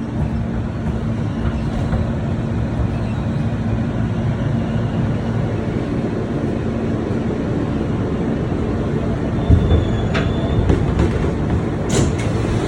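NYC subway R160B train rumbling with a steady hum, with a thump about nine and a half seconds in, a short high tone just after, and a sharp clatter near the end.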